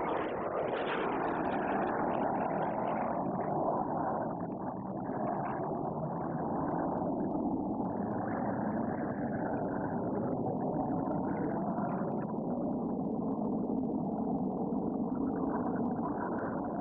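Steady rushing noise of Red Arrows BAE Hawk jet engines flying a display pass.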